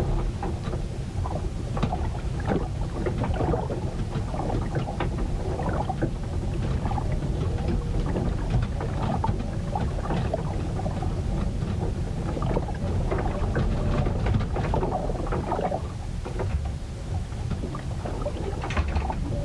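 Storm noise recorded aboard a wooden ship: a constant deep rumble of wind and water, with rain and water splashing and many scattered small knocks and slaps.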